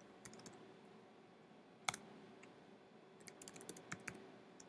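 Faint computer keyboard typing: a few scattered keystrokes, one sharper key click about two seconds in, then a quick run of keystrokes near the end.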